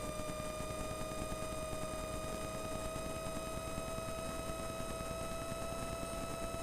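Turbocharged Bristell light-sport aircraft's engine running up on the ground for the pre-flight magneto check, a steady drone with a whine that rises slowly in pitch as the RPM is brought up to about 4,000.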